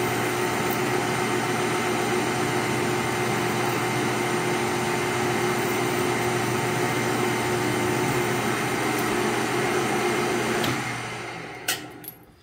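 Metal lathe running steadily, turning a .50 BMG bullet while the tool cuts its jacket away. About eleven seconds in, the lathe is switched off and winds down, with a couple of clicks near the end.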